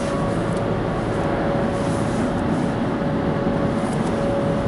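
Sonny's tunnel car wash at work around the car, heard from inside the cabin: water spraying over the car and wash brushes running, a steady wash of noise with a constant mid-pitched hum from the machinery.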